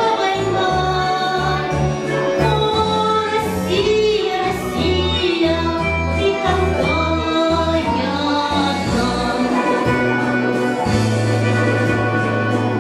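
A woman singing solo into a microphone over a recorded backing track, with sustained chords and a steady bass line under her melody.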